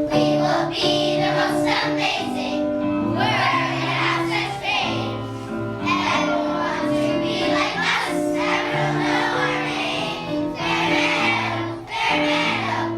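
A group of children singing a song together, with musical accompaniment underneath.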